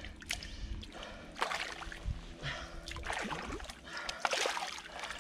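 Shallow river water sloshing and splashing around hands and a large asp as the fish is held in the water and released, with a few louder splashes near the end.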